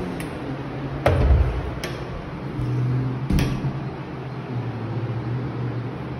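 A wall light switch clicks, then three sharp knocks and clicks follow; the first is the loudest, with a dull thud. Under them run a steady low hum and the rumble of the phone being handled.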